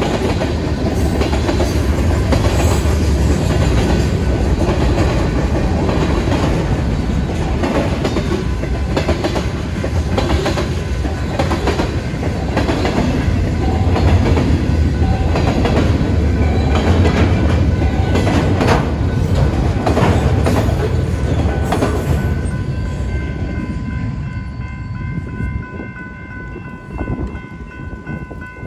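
Freight train cars (tank cars, then gondolas) rolling past over a grade crossing: a steady heavy rumble with wheels clacking over the rail joints. About 23 seconds in, the rumble fades as the last car passes, leaving the crossing bell ringing as a steady tone.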